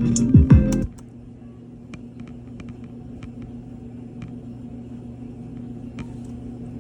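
Strummed guitar music cuts off about a second in, leaving a steady low hum with a few faint clicks.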